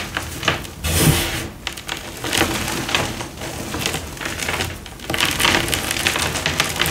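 Chunks of blue dyed reformed gym chalk crunched and crumbled between bare hands, a dense gritty crackle full of small sharp snaps. Crumbs and powder patter onto a chalk heap. It swells louder in several squeezes, strongest about a second in and again past the five-second mark.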